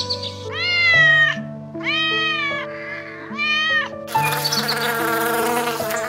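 Three cat meows, each rising then falling in pitch, over steady background music; about four seconds in, bees start buzzing loudly.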